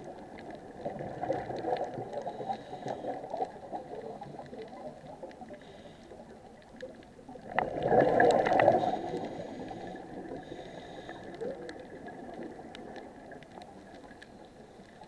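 Scuba diver's exhaled bubbles gurgling from the regulator, heard underwater. A longer, louder burst of bubbling comes a little past halfway, with softer bubbling and scattered small clicks around it.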